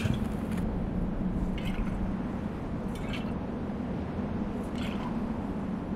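A few slow footsteps crunching on dry, sandy ground, spaced more than a second apart, over a steady low drone.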